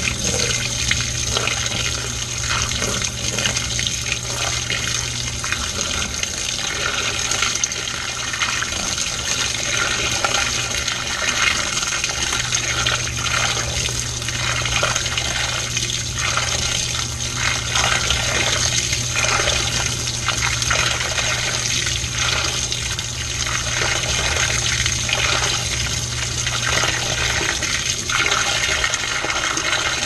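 Water sloshing and splashing inside a washing machine drum as the wet clothes churn, with a low steady hum underneath that drops away near the end.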